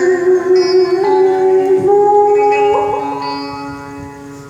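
Vietnamese traditional music: a string instrument playing an instrumental interlude, holding notes and sliding between them, fading away through the second half.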